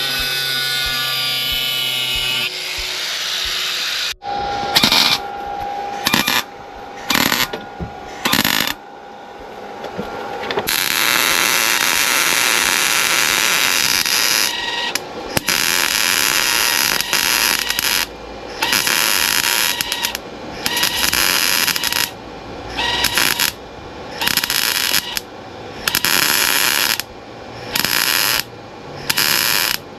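Gas-shielded MIG welder tack- and stitch-welding steel body panel: a string of crackling, hissing bursts, each from under a second to a few seconds long, stopping and restarting with short pauses. A steady whine from a power tool comes before it in the first couple of seconds.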